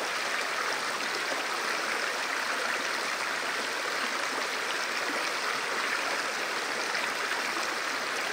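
Mountain river water running over rocks and spilling down a small cascade into a clear pool: a steady, even rush with no breaks.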